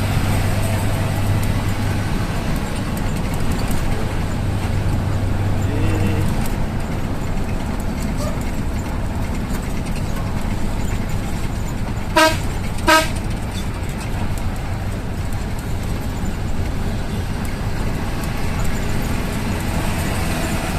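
Two short vehicle-horn toots in quick succession just past the middle, over the steady low rumble of an idling bus engine.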